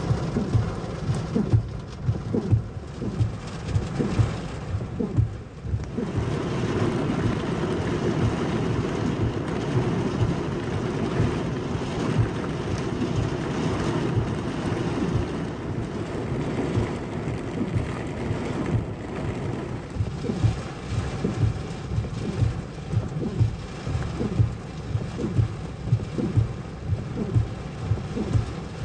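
Heavy thunderstorm: a steady downpour with thunder, and dense, irregular low thumps all the way through.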